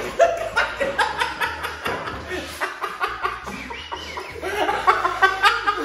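Several people laughing hard together in choppy bursts, swelling again near the end.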